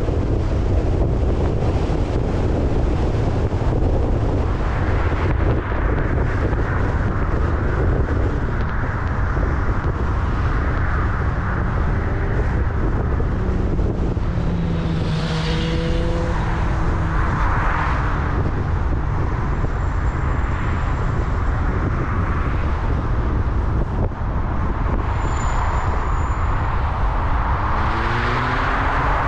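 Car driving on a city road: a steady low rumble of engine and tyre noise, with other vehicles passing by, one loudest around the middle, and an engine note rising in pitch near the end.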